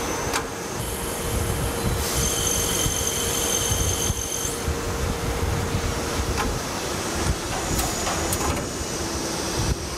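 Lathe machining a copper valve body: steady machine running noise with a low hum, a high squeal for about two seconds as the drill cuts, and a few sharp clicks near the end.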